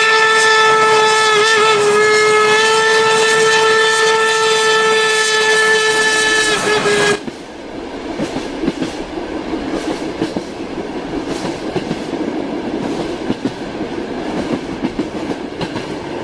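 A train sounds one long, steady horn note that cuts off about seven seconds in. Then comes the rumble of the train's wheels rolling on the rails, with irregular clicks over the rail joints.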